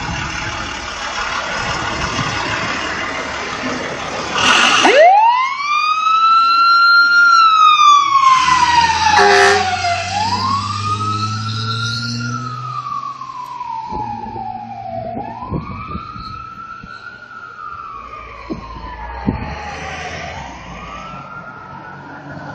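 Siren of a Freightliner FL heavy rescue fire truck: it winds up about five seconds in, then wails, each rise quick and each fall slow, about every five seconds, fading as the truck drives away. Before the siren starts, the truck's diesel engine is heard pulling out.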